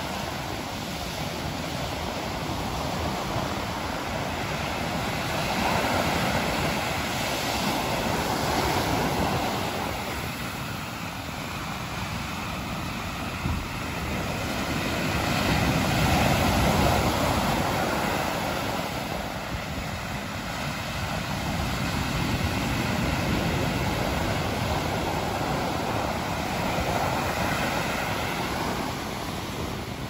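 Rough sea surf breaking and washing up a sandy beach: a continuous rush of water noise that swells louder every several seconds as each wave breaks, loudest about halfway through.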